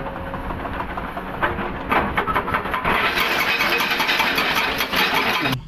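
Komatsu PC200 hydraulic excavator's diesel engine running under load while its hydraulic breaker hammers rock, a rapid string of hard knocks that is densest in the second half and cuts off abruptly just before the end.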